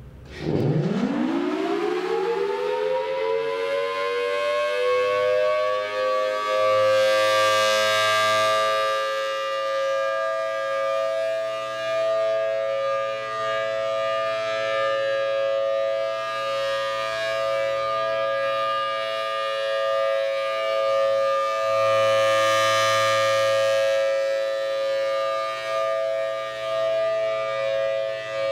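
Federal Signal Thunderbolt 1000T dual-tone rotating warning siren winding up, its pitch climbing steeply over the first two seconds, then holding a steady two-note chord for the alert signal. It swells and fades in loudness about every 15 seconds as the rotating head sweeps past.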